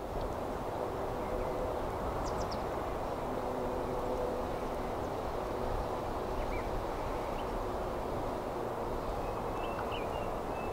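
Outdoor rural ambience: a steady low rumble that fades in at the start, with a few faint bird chirps over it.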